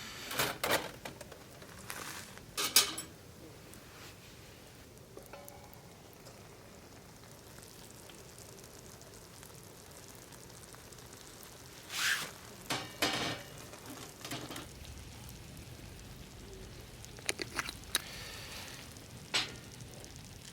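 Food sizzling faintly in a pan, with a few bursts of clinks and scrapes from cookware and utensils.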